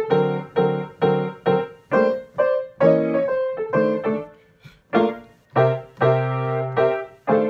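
Grand piano playing a jazz blues in F, with full chords struck about twice a second. A last chord near the end rings and fades.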